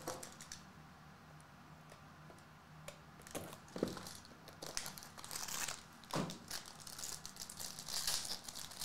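Silver foil trading-card pack being handled and torn open, crinkling in irregular bursts starting about three seconds in, with a few sharper crackles.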